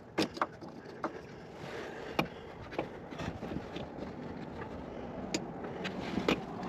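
Scattered sharp clicks and taps as plastic parts of an EVAP vent valve and its electrical connector are worked into place by hand, over a steady background hiss.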